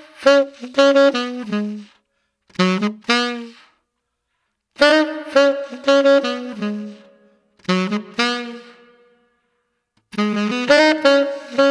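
Solo saxophone playing short melodic phrases with brief pauses between them, each phrase trailing off in a reverb tail from the Eventide 2016 Stereo Room plugin.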